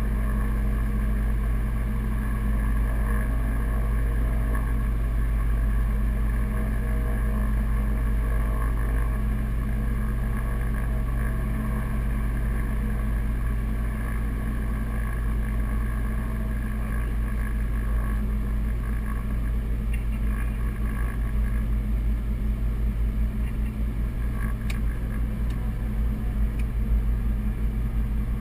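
The Piper Navajo's twin piston engines and propellers running steadily, heard inside the cockpit as a constant drone. The level wavers more quickly in the second half.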